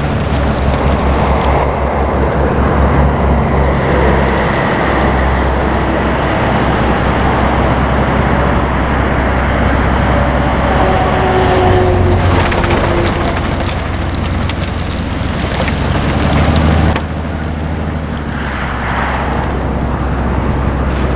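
Railway snow blower working through hard-packed snow: a steady heavy engine rumble under the rushing hiss of snow being churned and thrown. A faint falling whine comes in about halfway through, and the hiss drops away near the end, leaving mostly the low rumble.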